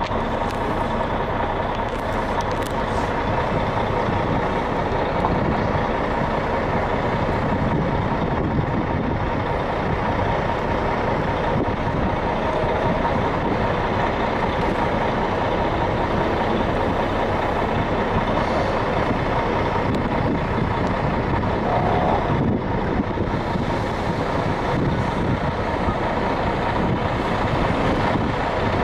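Heavy vehicle engine idling with a steady rumble and drone.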